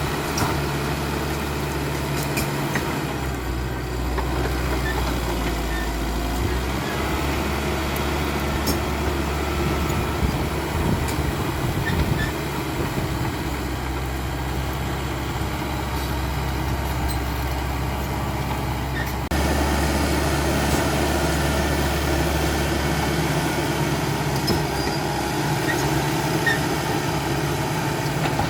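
Caterpillar D5K XL bulldozer's diesel engine running steadily, a low drone with a few faint clicks over it. About two-thirds of the way in the sound shifts abruptly and gets a little louder.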